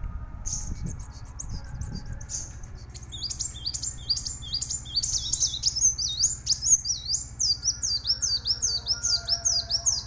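Kolibri wulung sunbird singing: scattered high chips at first, then from about three seconds in a fast run of repeated high notes, each sliding down and hooking back up, about three a second and getting louder toward the end. A steady low hum runs underneath.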